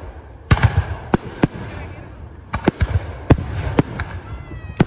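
Aerial fireworks shells bursting overhead: a string of about eight sharp booms at uneven intervals, each followed by a low rumble.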